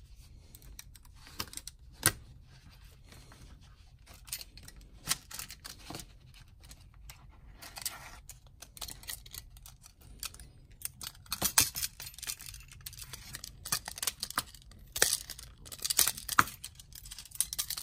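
Steel split rings and treble hooks clicking and jingling against split ring pliers and a hard plastic lure body, as a treble hook is worked onto a heavy #7 split ring. The clicks come scattered at first and grow more frequent and louder in the second half.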